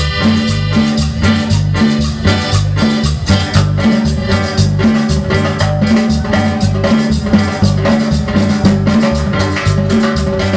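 Live band playing a steady Latin dance rhythm, led by accordion over bass guitar, drum kit and hand percussion.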